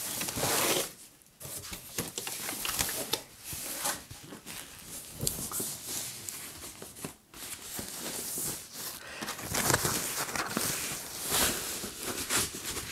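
Packaging being handled: a monitor panel in its white protective wrap is drawn out of a cardboard box and turned over, giving irregular rustling, crinkling and scraping. It is loudest about half a second in and again in the second half.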